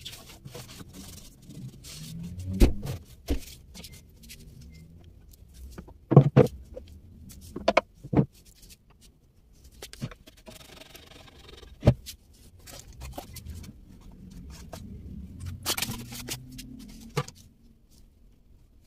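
Handling noises in a wooden cabinet: scattered sharp knocks, clicks and scrapes as wire shelf risers and a cardboard box are set down on its shelves, with a short stretch of rubbing near the middle.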